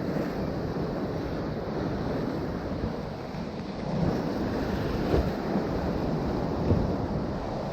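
Ocean surf with wind buffeting the microphone, a steady noisy wash with a few brief louder gusts or knocks around the middle and near the end.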